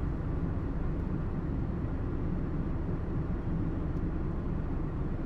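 Engine of a runaway piece of farm machinery running with a steady low rumble.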